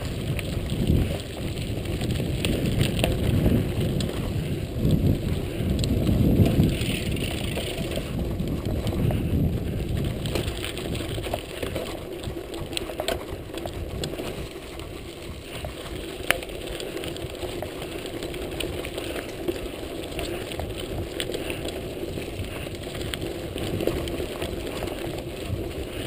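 Mountain bike riding over a rough gravel and dirt track: tyres rolling over loose stones and the bike rattling, with scattered sharp clicks over a steady low rumble.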